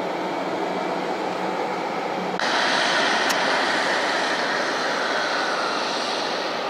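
Airbus A320's jet engines running at low power as the airliner taxis, a steady rushing whine. It turns abruptly louder and brighter about two and a half seconds in, with a single faint click soon after.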